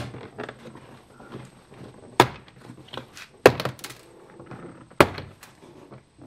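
Plastic retaining clips of a 2017 Mitsubishi Outlander's front door trim panel snapping loose as the panel is pried off by hand: four sharp snaps, about a second or more apart, with small clicks and rattles of the panel between them.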